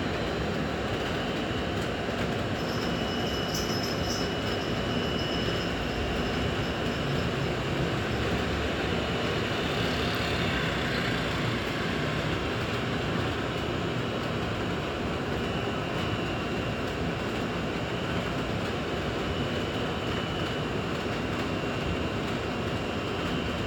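A machine running steadily: a continuous even rumble with a faint high whine over it.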